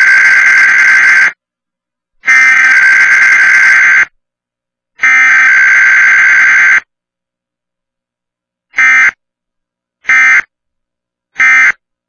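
Emergency Alert System SAME data tones for a Required Weekly Test: three long bursts of shrill, buzzing digital header tones, each about a second and a half with a second's gap between, then three short end-of-message bursts in the last few seconds.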